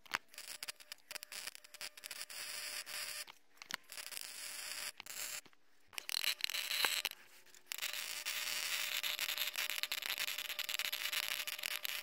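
Electric welding arc crackling and sizzling in several runs, stopping briefly between them.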